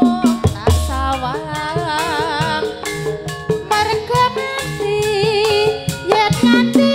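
Live Javanese gamelan playing tayub music: kendang drum strokes and bronze gong-chime strikes under a wavering sung melody line.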